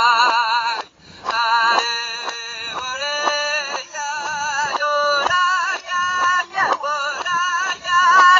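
High-pitched singing in a run of short held notes, each wavering with strong vibrato, with a brief break about a second in.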